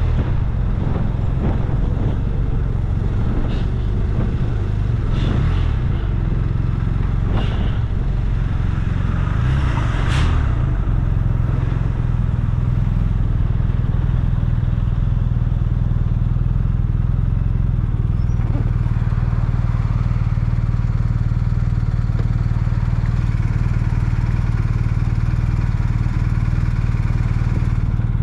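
A motor vehicle engine running steadily, with scattered knocks and clatter in the first ten seconds or so.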